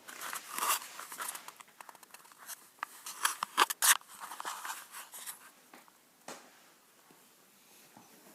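Rustling and soft knocking handling noise as the recording device is picked up and moved, busy for about five seconds, then a single click and quiet room tone.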